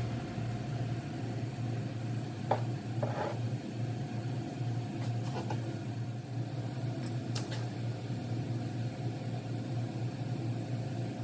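Steady low mechanical hum, with a few light clicks and knocks scattered through it.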